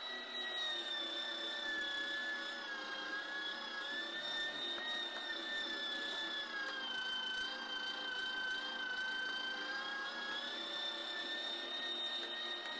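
Small electric countertop meat grinder running steadily while meat is pushed through it with a plunger. Its motor gives a high, steady whine whose pitch sags slightly and comes back up a few times.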